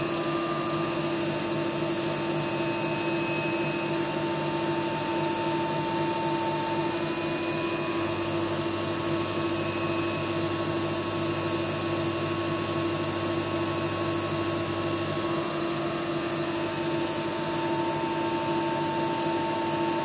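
CNC milling machine cutting metal with an end mill under a flood-coolant spray: a steady whine with several held tones over the hiss of the coolant. One of the tones drops out partway through and returns near the end as the cut changes.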